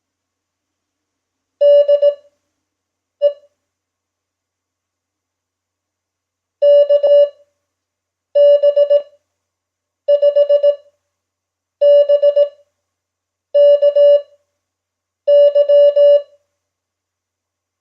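Morse code practice tone: a steady, clean beep keyed on and off into dots and dashes, sent at 5 words per minute Farnsworth speed. The characters are keyed briskly, with long silent gaps between them; there are about eight characters, the second of them a single short dot.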